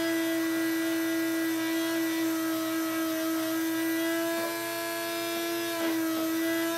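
Kahchan spindle drink mixer running at a steady pitch, its whisk spinning in a stainless steel cup to whip water, sugar and instant coffee into foam. A couple of brief clicks come near the end.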